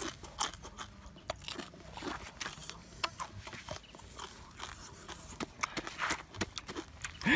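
A person chewing a mouthful of rock crab: irregular crunches and mouth clicks.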